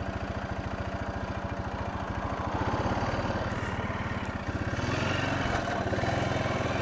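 Honda four-wheeler's engine running as it is ridden, with quick, even firing pulses. It picks up a little about two and a half seconds in and again near five seconds.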